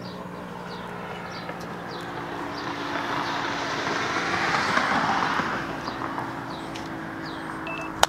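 A car passing by, its road noise swelling to a peak about halfway through and then fading. Birds chirp throughout over a faint steady low hum.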